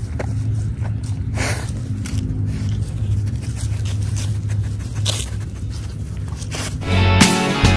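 A dog sniffing with its nose down in the grass, in short repeated sniffs as it searches out scattered food, over a low steady rumble. Music comes in near the end.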